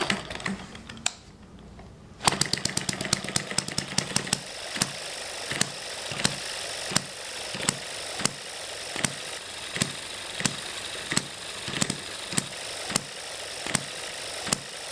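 M90 hit-and-miss model engine, a single-cylinder four-stroke, hand-flipped by its flywheels and catching about two seconds in with a quick run of firing strokes. It then settles into evenly spaced sharp firing pops about one and a half per second over a steady mechanical clatter, coasting between firings as a hit-and-miss engine does.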